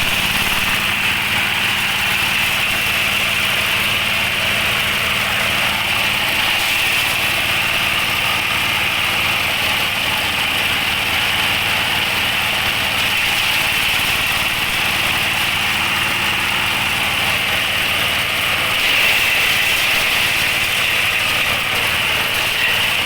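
Diesel-powered compost shredder, an 8 HP engine with a blower discharge, running steadily. A constant engine drone sits under a steady high whine.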